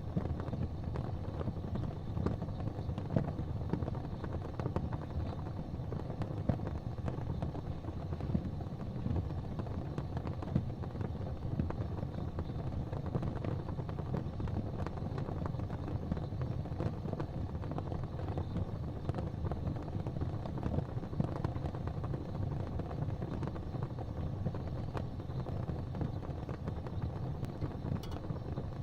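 Fire burning with a steady low roar of flame and constant small crackles, with a louder pop now and then.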